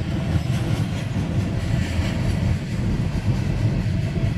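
Double-stack intermodal freight train rolling past steadily, a continuous low rumble of wheels on rail, heard from inside a car.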